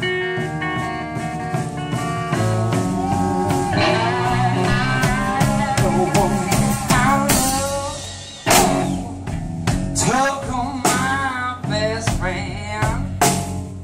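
Live blues-rock band playing: an electric guitar plays a lead of sustained, bent and wavering notes over drums and cymbals, with a loud accent hit about eight and a half seconds in.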